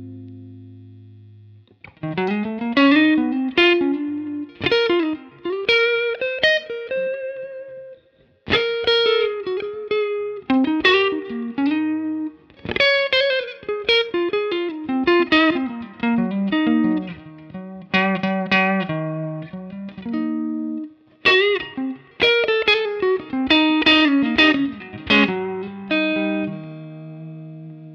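Fender Stratocaster electric guitar played through a Universal Audio OX amp top box on its default 2x12 cabinet preset: single-note lead phrases with string bends, separated by short pauses, ending on a long held low note.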